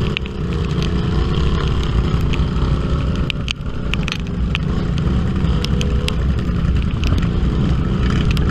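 Off-road side-by-side UTV engine running steadily, with a brief dip about three and a half seconds in and scattered sharp clicks and knocks over it.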